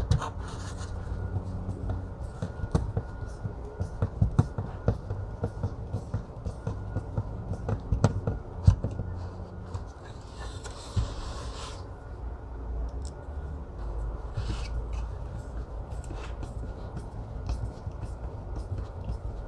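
Screws being driven by hand into a plastic window-switch assembly: scattered clicks and scraping of the screwdriver and plastic parts, the sharpest clicks about eight to nine seconds in, with a brief scratchy rustle around ten seconds.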